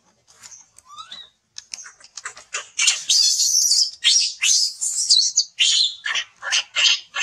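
Newborn macaque screaming in distress as its mother holds it down: a run of short, shrill, high-pitched squeals, faint at first and loud and almost continuous from about three seconds in.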